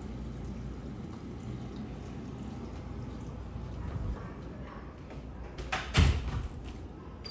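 Steady low rumble, with a brief loud knock and scraping rustle about six seconds in.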